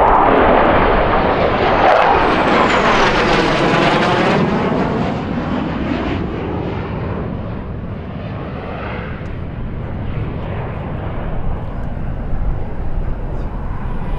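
F-16 Fighting Falcon jet engine noise as the fighter flies past and away, loudest at the start and slowly fading. A sweeping, phasing whoosh runs through the sound in the first few seconds.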